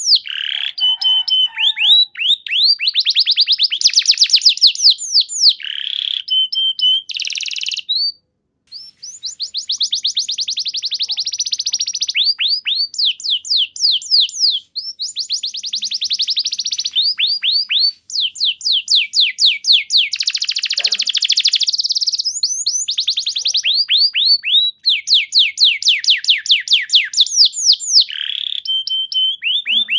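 Domestic canary singing a long, loud song of fast trills: rolling phrases of quick downward-sweeping notes, with a few short steady whistled notes and a brief pause about eight seconds in.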